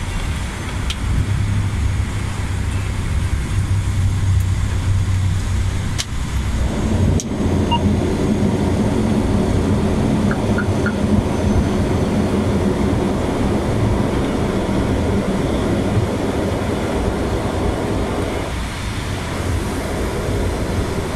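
Cockpit noise of an ATR 72-600's twin Pratt & Whitney PW127 turboprops and propellers during the landing rollout, a loud steady drone with runway rumble. About seven seconds in the engine and propeller drone grows stronger and deeper, with a single knock, then eases again near the end as the aircraft slows.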